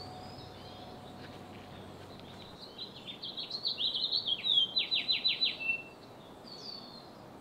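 A songbird singing: a run of quick high chirps starts about three seconds in and ends in about five rapid downward-slurred notes, over a faint steady outdoor hiss.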